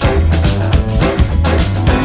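Intro theme music with a steady beat, about two beats a second.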